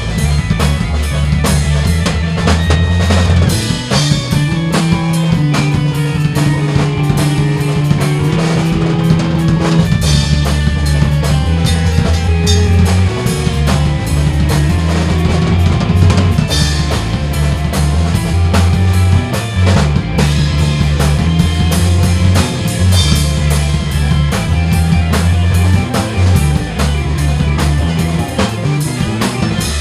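Instrumental band music: a drum kit keeps a steady beat with kick and snare over electric bass lines, with electric piano and organ.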